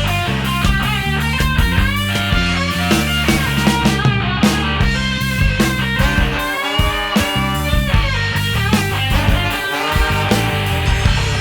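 Live band music: electric guitar over a steady bass line and drums, from a rock band with a horn section of alto sax, trombone and trumpet, with bending melody lines throughout.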